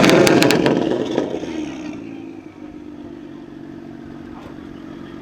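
BMW car engine coming off a hard rev, with a quick run of sharp exhaust cracks and pops in the first second as the revs fall, then settling to a steady idle.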